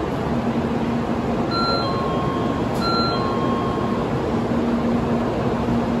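Steady noise of a Shinkansen station platform, with a faint low hum. Twice, about a second and a half apart, a faint two-note electronic chime sounds: a short high note, then a longer lower one.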